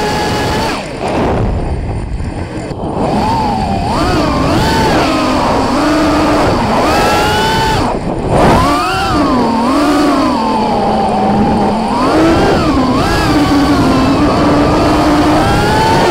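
Five-inch FPV racing quad's Emax RS2205 brushless motors and 5-inch props whining, the pitch swooping up and down with the throttle through fast passes, with a short cut and surge about halfway through as the quad rolls inverted. Wind rushes over the onboard camera's microphone underneath.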